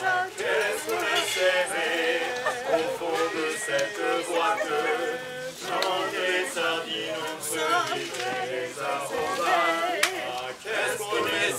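Voices singing a song, the pitch moving from note to note throughout.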